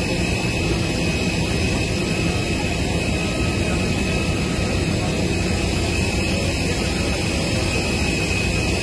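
Aircraft turbine engines running steadily: a loud, even roar with a constant high whine on top.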